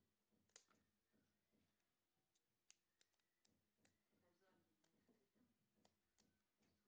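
Near silence with faint, scattered clicks coming irregularly, roughly every half second to second.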